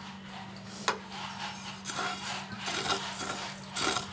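Wooden spatula stirring whole coriander seeds as they dry-roast in a non-stick frying pan: repeated scraping, rattling strokes starting about a second in, over a steady low hum.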